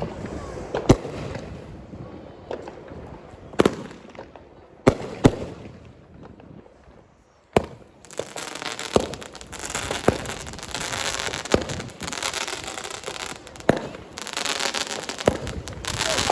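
Consumer fireworks going off: a handful of sharp bangs in the first eight seconds, then from about eight seconds in a dense hissing crackle scattered with small pops.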